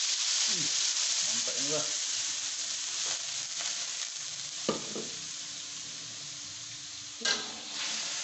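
Wet ground spice paste sizzling in hot oil in a wok, loudest at first and slowly dying down as the oil cools. A couple of short knocks break in, the louder one about seven seconds in.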